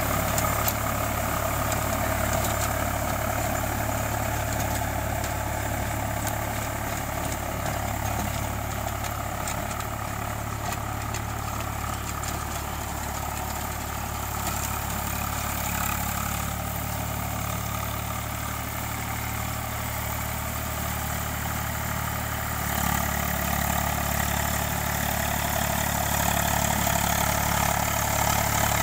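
Eicher 485 tractor's three-cylinder diesel engine running steadily under load while it pulls a rotavator through wet paddy soil. The sound eases slightly in the middle and grows louder again about two-thirds of the way through.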